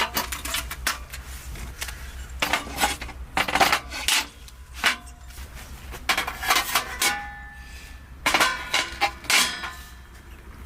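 Clattering and clinking of hard, mostly metal objects being handled, in irregular bunches of knocks, a few of them ringing briefly.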